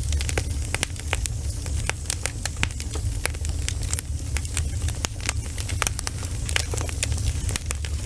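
Wood fire of burning logs crackling, with many irregular sharp pops over a steady low rumble.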